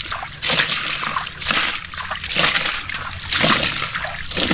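Water splashed by hand over a toy dump truck, several splashes roughly a second apart.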